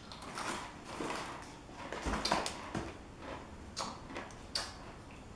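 Faint handling noises: scattered rustles and a few light knocks as a crinkly snack bag of pretzel Goldfish crackers is set down on a cardboard box and a glass bottle is picked up.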